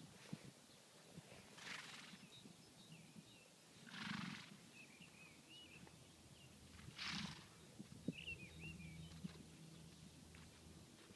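Near silence: faint outdoor ambience with a few soft, breathy puffs about every three seconds.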